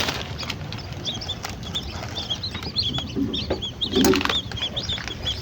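Small birds chirping: a rapid, continuous series of short high calls, with a few sharp clicks among them.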